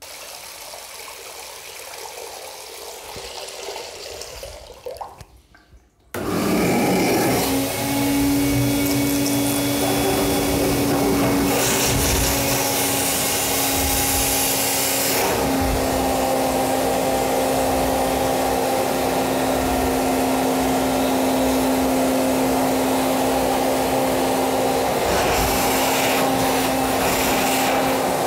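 Wet-and-dry shop vac switched on about six seconds in and running steadily with a motor hum, its nozzle sealed over a blocked basin's plug hole to suck the water and the blockage out of the trap. Twice the hiss swells into a louder rush for a few seconds.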